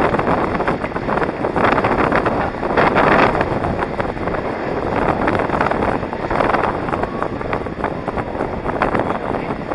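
Wind rushing over the microphone of a moving skater, mixed with inline skate wheels rolling on asphalt. The rushing noise swells and eases irregularly.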